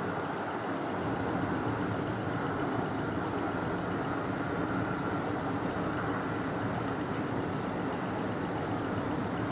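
Steady drone of a Boeing 747's jet engines on final approach with the landing gear down.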